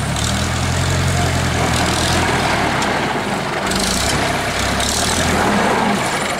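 Zetor tractor's diesel engine running as the tractor drives across a muddy course. The engine note eases a little just past halfway, then picks up again.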